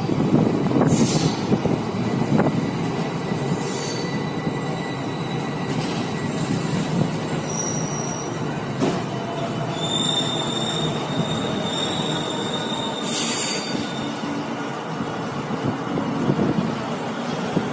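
Passenger train coaches running past on the rails: a steady noise of wheels on track, with a click every few seconds as wheels cross rail joints. High wheel squeal comes in briefly about eight seconds in and again from about ten to fourteen seconds in.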